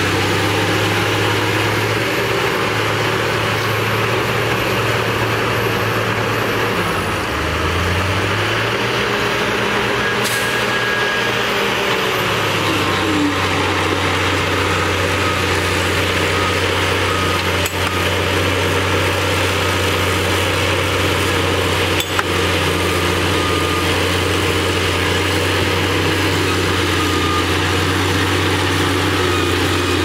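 Heavy diesel engines of a LiuGong B160C crawler bulldozer and a tipping dump truck running steadily at work. The low engine note dips about seven seconds in and picks up again a few seconds later, with a sharp knock about two-thirds of the way through.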